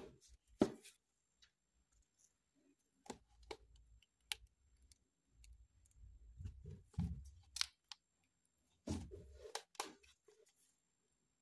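Blue dental sheet wax being handled and peeled apart: faint, scattered crackles and clicks of the thin sheets, with dull bumps from handling.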